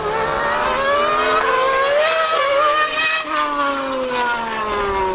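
A 2013 V8 Formula 1 car and a Yamaha R1M superbike racing past together at full throttle. Their engine pitch climbs for about three seconds, then falls away.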